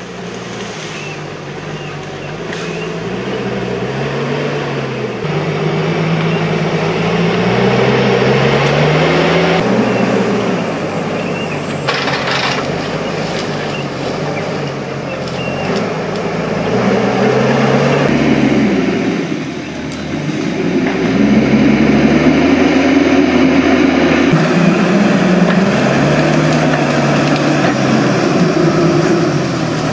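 Diesel engine of a forestry tractor (skidder) with a hydraulic grapple crane, working under load, its revs rising and falling again and again as the crane handles branches. A short hiss about twelve seconds in.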